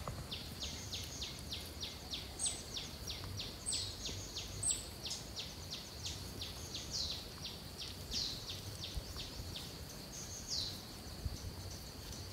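Insects and birds in dry forest: a steady high insect drone under an even train of short, high chirps at about four a second, with a few brief, higher bird chirps early on.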